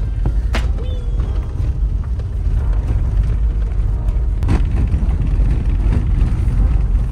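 Car driving along a winding road, heard from inside the cabin: a steady low rumble of engine and road noise, with a couple of short knocks, about half a second in and again about four and a half seconds in.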